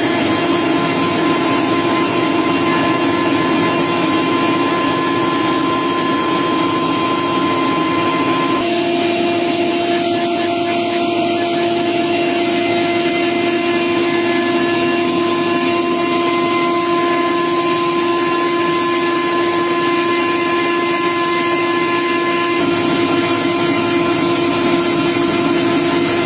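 Factory processing machinery running steadily, a dense whir with a constant hum from its electric motors. The hum shifts in pitch suddenly about a third of the way in, and the hiss brightens a little past halfway.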